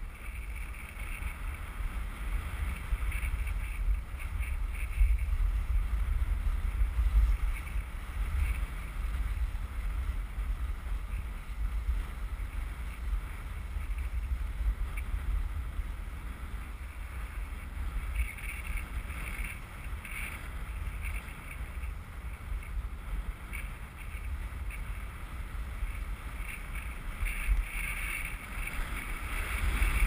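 Wind buffeting the microphone of a camera carried by a skier moving downhill, a gusting low rumble, over the hiss of skis sliding on packed snow that swells now and then.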